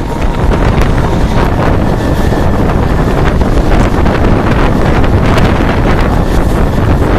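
Wind buffeting the microphone held out of a moving Mumbai suburban local train, over the train's running noise on the rails, with a few faint clicks.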